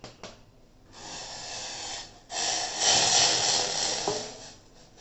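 Hot water poured in a stream from a steel pan into a steel bowl of rice flour. The pour breaks briefly about two seconds in, is loudest in its second half, and trails off near the end. Two light knocks come just before it.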